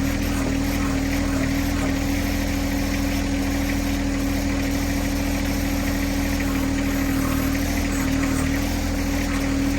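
John Deere 1026R compact tractor's three-cylinder diesel engine running steadily at a constant speed, with a steady hum.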